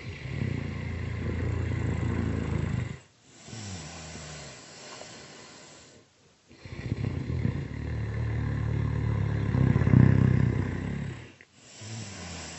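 Loud snoring, two full breaths: each a long, rattling snore on the in-breath followed by a quieter out-breath that falls in pitch. The second snore is the louder.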